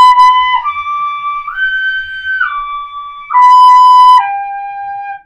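Pífano, a wooden transverse fife in C, playing a G major arpeggio in long held notes, each about a second. It goes up from B to D to the high G, then back down through D and B, and ends on the low G. The tone is clear and slightly breathy.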